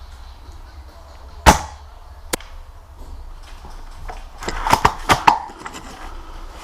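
Airsoft gun firing: one sharp crack about one and a half seconds in, then a single click, and a quick run of several sharp clacks a little before the end.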